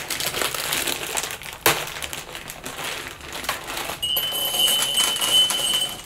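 Plastic bag of dry penne pasta crinkling as it is opened and handled, with small clicks and a knock, then the dry pasta rattling as it is poured into a cup. A thin, steady high tone sounds under the last two seconds.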